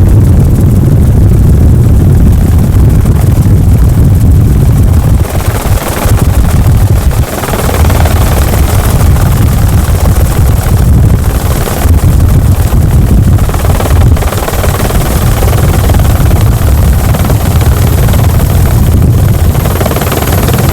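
Loud, steady helicopter cabin noise heard from aboard: the rotor and engine running, heavy in the low end, with brief dips in loudness about six and seven seconds in.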